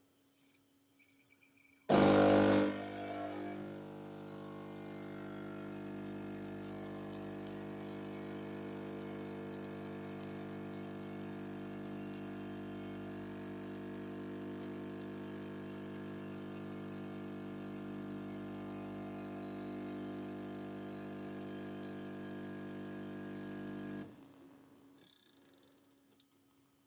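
Philips 5400 series LatteGo bean-to-cup coffee machine's pump running steadily as it dispenses a cappuccino, starting with a short loud burst about two seconds in and cutting off about 24 seconds in.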